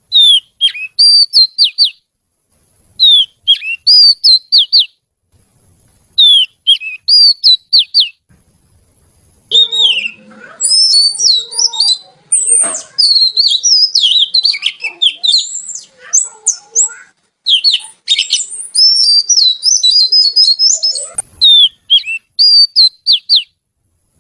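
Oriental magpie-robin (kacer) singing loud whistled song. A short phrase of a falling whistle and quick notes repeats three times, about three seconds apart. A longer run of varied rapid whistles and chirps follows, then the short phrase comes once more near the end.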